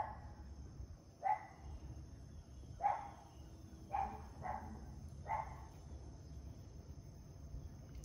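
A neighborhood dog barking, a string of about five single barks roughly a second apart that stop a little past five seconds in.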